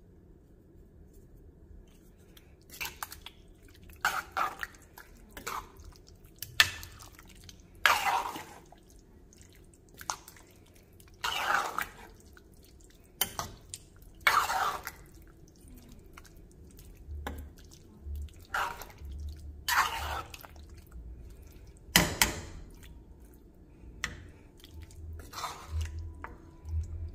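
Metal spoon stirring a thick beef stew in a metal pot: irregular wet squelches and scrapes against the pot, one every second or two.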